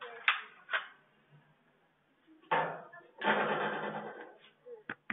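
Sharp knocks and clatters heard through a security camera's microphone, with a louder noisy rush lasting about a second past the middle and a few quick clicks near the end.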